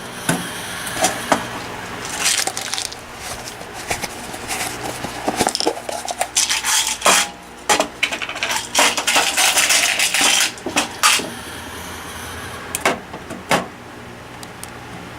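Hard drive being handled and fitted into a metal desktop PC case: irregular clicks, knocks and scraping of metal parts.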